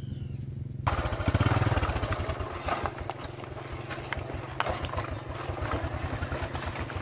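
A small motorbike engine running. About a second in it turns louder and revs up, with rattles and knocks as the bike jolts over a rutted dirt track.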